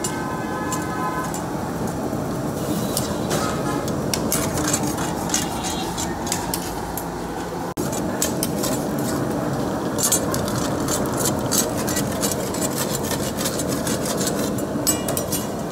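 Chicken karahi sizzling and bubbling in a steel wok over a gas flame as the ladle stirs it, the curry cooking down after the yogurt has gone in. A steady rushing noise lies underneath, and a dense crackle picks up a few seconds in.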